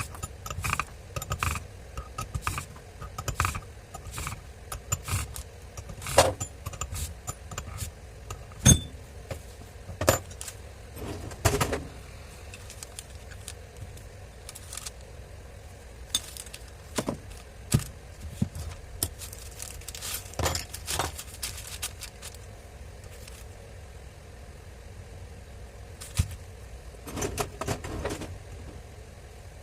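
Irregular metallic clicks, taps and clatters of hand tools and angle-grinder parts being handled during a repair. They are busiest in the first dozen seconds, thin out in the middle, and come back in clusters later on.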